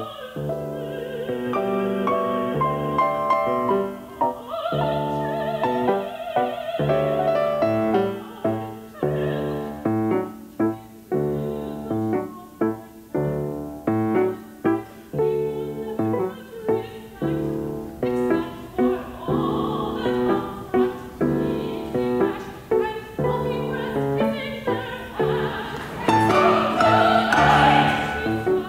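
Operatic soprano singing with grand piano accompaniment, in short, quick phrases through the middle and swelling louder near the end.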